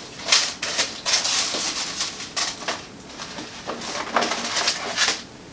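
Rustling and crinkling of packaging as sewing notions are handled, in a series of irregular short crackles.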